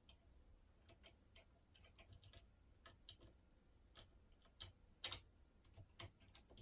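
Faint, scattered little clicks of a lever pick working the levers inside a 5-lever mortice lock, with a sharper click about five seconds in. The levers are being lifted back up after one or two have dropped.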